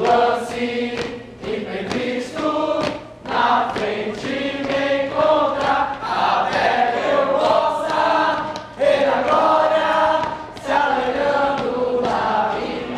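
A group of teenagers, boys and girls, singing together as a choir, phrase after phrase with short breaks between lines.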